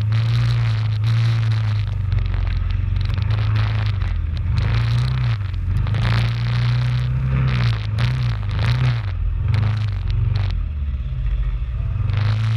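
Quad bike (ATV) engine running, its pitch rising and falling with the throttle, under repeated bursts of rustling, scraping noise.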